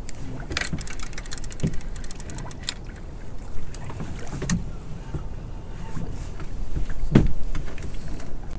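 Small open boat at sea: water lapping against the hull and wind on the microphone, with scattered knocks on the boat. A fishing reel clicks quickly about a second in as a fish is reeled up, and there is a louder thump a little after seven seconds.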